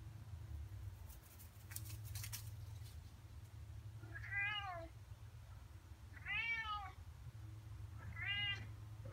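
A cat meowing three times, about two seconds apart; each meow is short and rises then falls in pitch.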